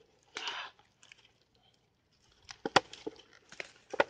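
Dry branches and twigs rustling and snapping as someone pushes through thorny scrub: a brief rustle near the start, then a string of sharp cracks over the last second and a half.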